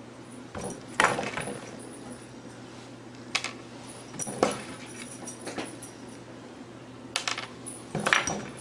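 A few sharp taps and clicks on a wooden tabletop, spaced a second or more apart, over a steady low hum. There is a quicker cluster of taps near the end as a cat lands on the table.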